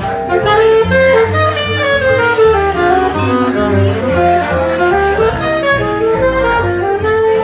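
Jazz band playing, with a saxophone running fast melodic lines over a bass line whose notes change about twice a second.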